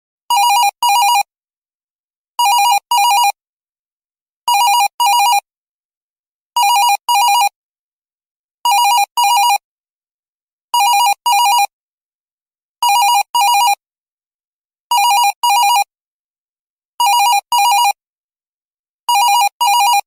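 Office phone ringtone ringing in double rings: two short rings about every two seconds, with silence between, ten pairs in all.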